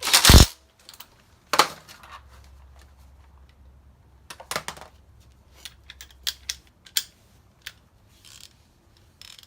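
Scattered knocks, clanks and light clicks of tools and metal car parts being handled, with the loudest knock right at the start.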